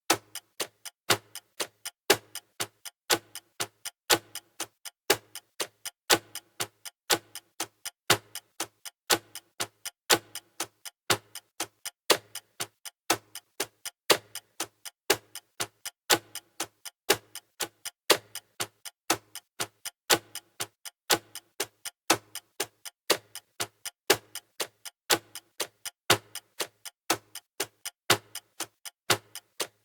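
Clock ticking steadily, about two ticks a second, some ticks louder than others.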